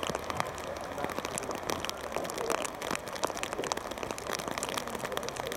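Rain patter close to the microphone: a dense run of irregular sharp ticks over a steady hiss, with faint distant shouts from players on the pitch.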